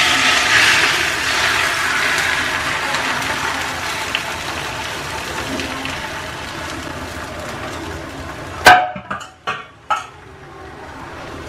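Beaten egg sizzling as it is poured into a hot non-stick frying pan, the sizzle loudest at first and slowly dying down. Near the end, one sharp knock and a few lighter knocks, after which the sizzle goes on more quietly.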